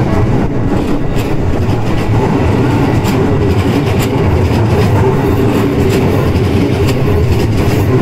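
Keisei 3050-series electric train passing close by: a steady rumble of wheels on rail, with scattered clicks.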